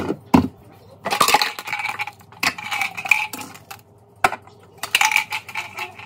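Kitchenware clinking and clattering as things are taken out of a cabinet. There is a sharp knock at the start and three short bouts of rattling.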